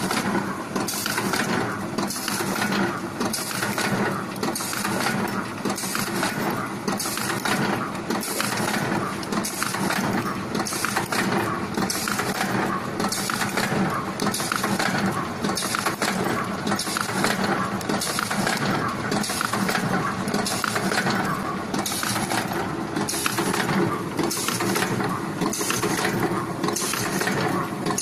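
Automatic pants-hanger spring clip bending machine running, its metal forming tools clacking about once a second over a steady mechanical running noise.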